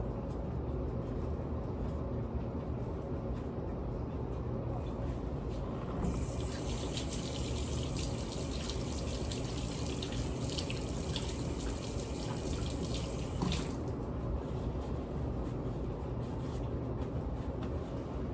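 Kitchen tap turned on about six seconds in, water running and splashing into the sink for about seven seconds, then shut off. A steady low hum runs underneath.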